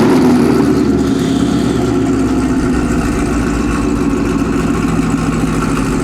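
A 2020 Camaro SS's supercharged 6.2-litre LT1 V8 idling steadily through a new AWE Touring axle-back exhaust with a Corsa X-pipe, just after being started.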